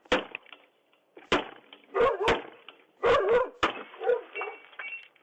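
Windows being smashed: a run of about six sharp crashing blows, irregularly spaced, each with a brief ring of breaking glass.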